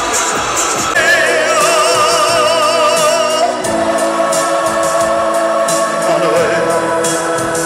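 Live music with singing: a singer holds long notes with vibrato over a steady accompaniment.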